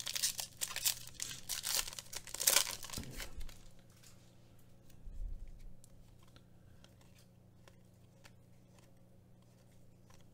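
Foil wrapper of a Panini Mosaic soccer trading-card pack being torn open and crinkled for about three and a half seconds, with another short crinkle about five seconds in. Then faint ticks of the cards being slid through the hands.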